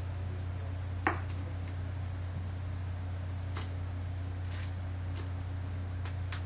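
Steady low hum with a few faint, sharp clicks, the loudest about a second in, and a short high crinkle near the middle.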